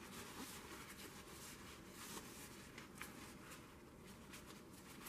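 Faint, irregular light scratching and ticking of handling noise over a low hiss.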